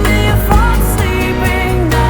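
Background music: a song with a sung melody over a steady bass line.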